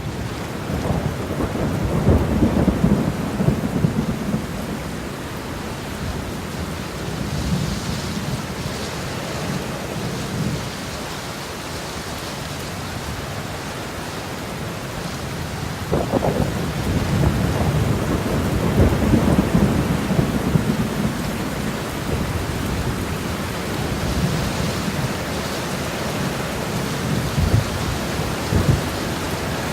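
Steady rush of water, a continuous noise with louder low rumbling swells a second or so in and again just past the middle.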